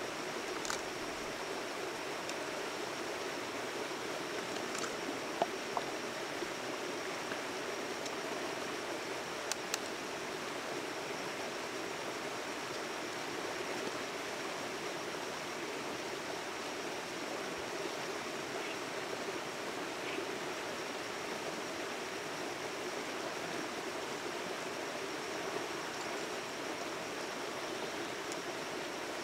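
Steady rushing noise of running water, with a faint, thin, high steady tone and a few faint clicks.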